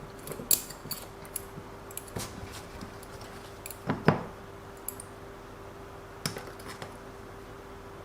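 Small metal parts clinking and knocking on a workbench as RC drive shafts and gears are handled: scattered clicks, with a louder pair of knocks about four seconds in, over a faint steady hum.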